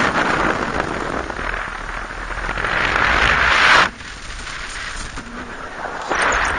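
Wind rushing and buffeting over the camera microphone of a paraglider in flight, swelling to a peak a little before four seconds in, dropping off suddenly, then surging again near the end.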